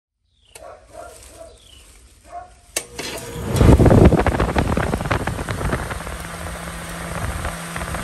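A 1985 Carrier Round One central air conditioner's outdoor unit starting up: a sharp click, then a loud surge of noise as the unit comes on, settling into steady running with a low hum. The unit is running with its refrigerant charge completely flat.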